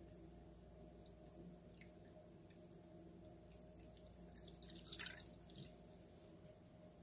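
Vinegar poured from a bottle over a sandstone rock in a glass dish: a faint trickle and splash of liquid that swells to its loudest about five seconds in, with a few small drips, over a low steady hum.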